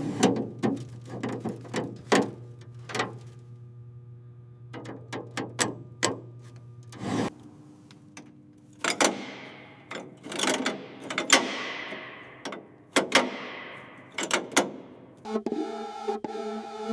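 Irregular sharp clicks and knocks of assembly work with hand tools, over a steady low hum for roughly the first seven seconds; several of the later knocks ring on briefly. Music with sustained tones comes in near the end.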